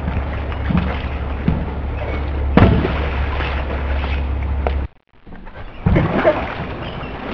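A dog batting a large yoga ball around a pool: thumps of the ball and splashing. One loud thump comes about two and a half seconds in and more knocks follow near the end, over a steady low hum that cuts out abruptly just before five seconds.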